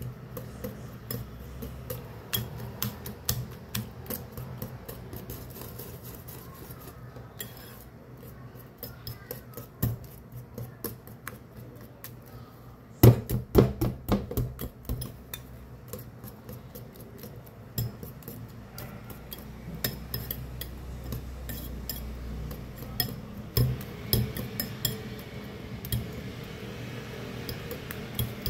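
Wire balloon whisk beating thick banana cake batter in a ceramic bowl, its wires clicking and scraping against the bowl in quick, uneven strokes, loudest about halfway through.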